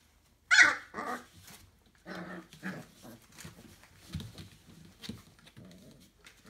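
Four-week-old Entlebucher puppies vocalizing: a sharp, loud, high-pitched cry about half a second in and another just after it, then several quieter, lower sounds.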